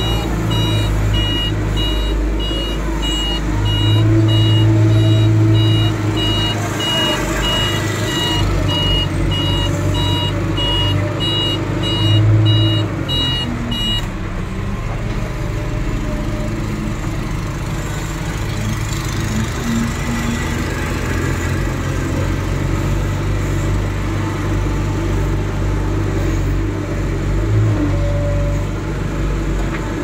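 Diesel engine of a JCB backhoe loader running under load, swelling in level a few times as it works. A reversing alarm beeps in a steady repeating run and stops about halfway through.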